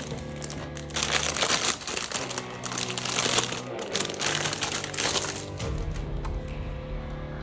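Plastic toy packaging being handled and crinkled, loudest from about one second in to about five and a half seconds, over steady background music.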